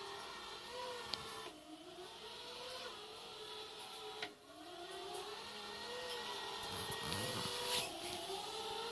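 Everybot RS500N wet-mop robot cleaner running, its motors giving a whine whose pitch wavers up and down, dropping and recovering about one and a half and four seconds in, with a couple of sharp ticks.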